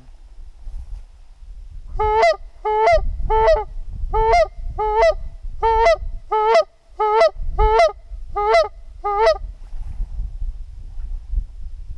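Goose calling to draw in geese: about eleven loud two-note honks in a steady series, roughly one every two-thirds of a second, starting about two seconds in, over low wind rumble.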